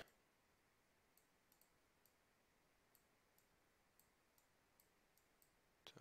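Near silence with about a dozen faint, irregular clicks of calculator keys being pressed.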